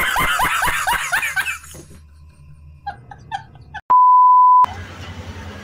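A man laughing loudly in quick bursts for about a second and a half. About four seconds in comes a steady, loud 1 kHz beep lasting under a second, the test-card tone of a TV colour-bar glitch transition, followed by a hiss with a low hum.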